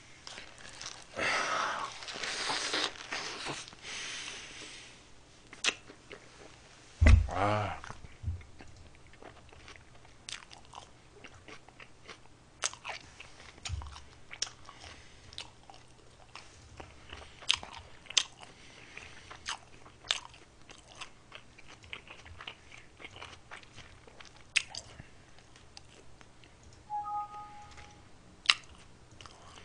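Close-miked chewing and crunching of food, with scattered sharp mouth clicks and smacks. A noisy stretch of chewing in the first few seconds and one short, louder vocal sound about seven seconds in.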